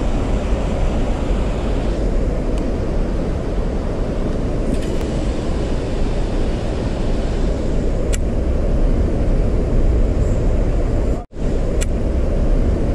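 Steady low rumble of wind buffeting the microphone, with a few faint clicks and a momentary dropout about eleven seconds in.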